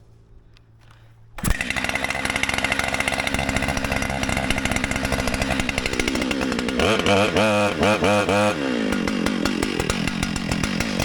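Brand-new Husqvarna 592XP two-stroke chainsaw starting up about a second and a half in and running, its throttle revved up and down several times in quick succession a little past the middle before it drops back to idle, then revved again near the end.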